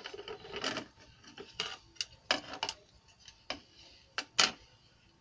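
Irregular light clicks and taps, about eight of them, the loudest near the end: a circuit board and multimeter test leads being handled on a workbench.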